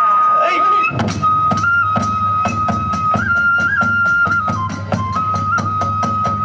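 Kagura accompaniment music: a Japanese transverse flute holds a long high note, stepping briefly up and down, over fast, steady percussion strikes that come in about a second in.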